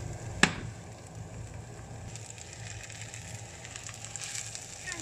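Fried rice crackling faintly in a hot nonstick frying pan, with one sharp knock about half a second in, as of a wooden spatula striking the pan. Near the end, rice scraping and sliding out of the pan onto a plate.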